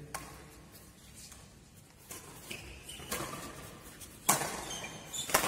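Badminton racket strokes on a shuttlecock: several sharp hits at uneven intervals, the loudest about four seconds in, with brief high squeaks of court shoes on the floor between them.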